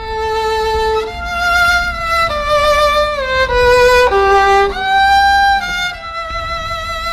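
Music: a single melody line played with vibrato, its notes stepping down by degrees and then leaping back up.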